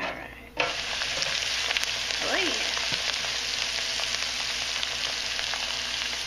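Flour-dredged dandelion flowers frying in the hot oil of an electric deep fryer. A loud, dense sizzle starts suddenly about half a second in, as the basket goes into the oil, and then carries on steadily.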